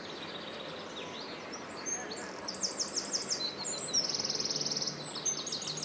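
A small songbird singing high, quick phrases: a run of repeated notes about halfway in, then a fast trill, then another run of repeated notes near the end, over a steady background hiss.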